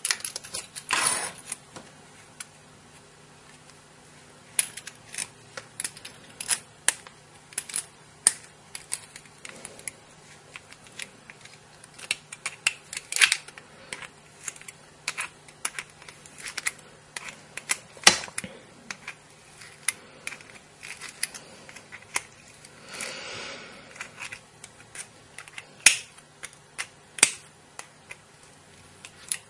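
Small sharp metallic clicks and taps of a Zippo lighter being handled and reassembled, its flint spring screw being turned in using the edge of the lighter's case top. The clicks come irregularly throughout, with a brief scraping rustle about three-quarters of the way through.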